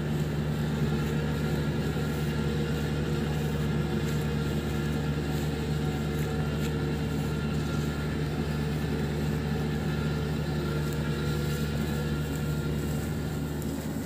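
Kubota DC-70 combine harvester's diesel engine running with a steady drone at an unchanging pitch.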